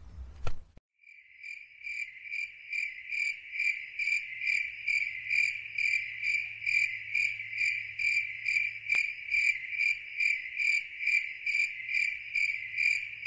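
An insect chirping: a high, thin note repeated in a steady, even rhythm of about three chirps a second, starting about a second in after a brief click.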